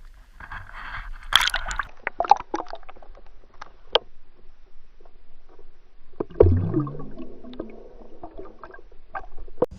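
Water sloshing and splashing against a fishing boat, with scattered clicks and knocks; a louder low sound sets in about six seconds in.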